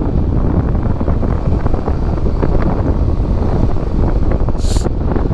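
Wind rushing over the microphone on a moving Yamaha Aerox 155 scooter, with its engine running underneath as a steady rumble. A short hiss near the end.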